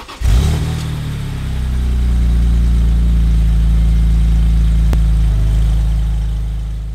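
A car engine catches suddenly and settles into a steady idle, swelling slightly, then fades out near the end. A light click sounds about five seconds in.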